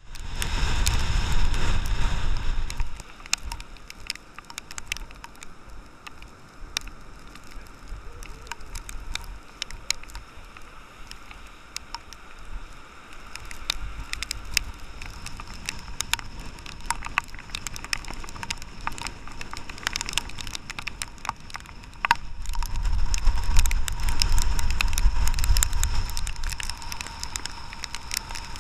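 Tropical-storm wind buffeting the microphone in heavy rumbling gusts, strongest near the start and again over the last six seconds. A constant crackle of sharp ticks strikes the microphone throughout.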